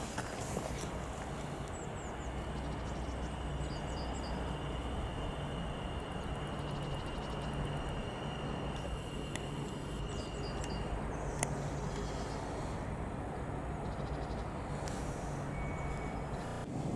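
Electric multiple-unit passenger train at a station platform, with a steady low hum and a thin high whine that stops about eleven seconds in.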